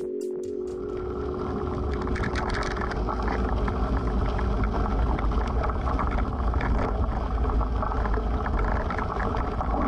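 Wind buffeting an outdoor microphone: a loud, rough, low rumble with light crackling over it. Chime-like music cuts out within the first second.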